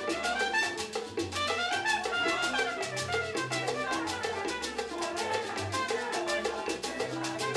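A Cuban band playing Latin dance music in a salsa style: brass carrying the melody in quick runs over a steady, fast percussion pattern and a stepping bass line.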